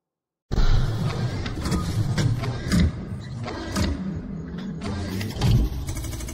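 Sound-design sting of an animated logo sequence: it cuts in suddenly about half a second in with a deep, heavy rumble struck through by a series of sharp clanking hits.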